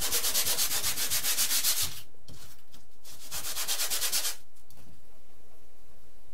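Hand sanding: two runs of quick back-and-forth scratchy strokes, the first about two seconds long and the second, a second later, about a second long.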